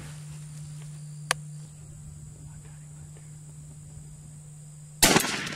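A youth 20-gauge shotgun fires once near the end, a loud, sudden blast with a short ringing tail. Before it, a steady high insect buzz and a single sharp click about a second in.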